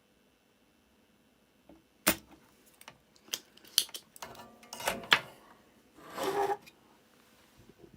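A handful of sharp clicks and taps, with a short scraping rustle near the end, after about two seconds of quiet: hand tools working on a circuit board as an old X2 capacitor is desoldered and pulled out.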